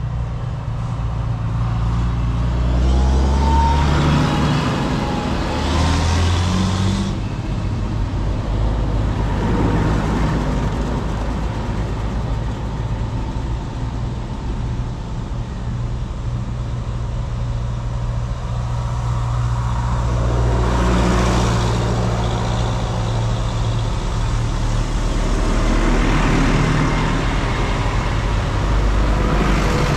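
Farm tractor engines running as several tractors drive along a lane one after another. The engine note swells and shifts in pitch as each one comes close.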